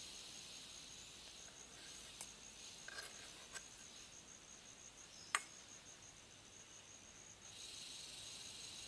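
Insect trilling steadily, a fast pulsed high note that runs on without a break. A few light clicks and knocks sound over it, the sharpest about five and a half seconds in.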